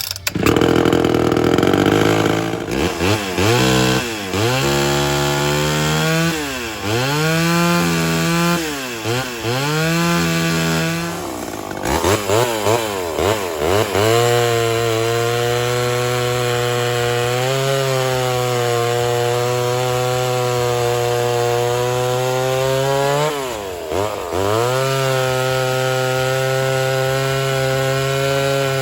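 Homelite Super XL Auto two-stroke chainsaw running, revved up and down repeatedly for about the first twelve seconds, then held at a steady high speed with one brief drop and recovery about two-thirds through, typical of cutting wood. The saw runs on newly fitted crankshaft seals.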